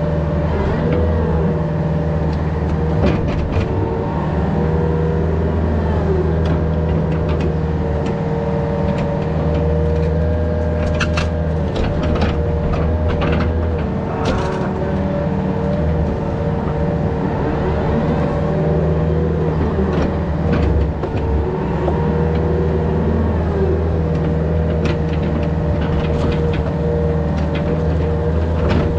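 Yanmar VIO50 mini excavator's diesel engine running steadily under working load, with a steady higher whine over it and scattered knocks and clanks throughout.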